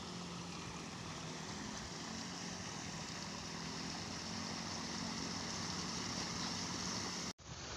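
Steady rush of water spilling over a small irrigation-channel weir, with a faint low engine hum underneath; the sound cuts off suddenly near the end.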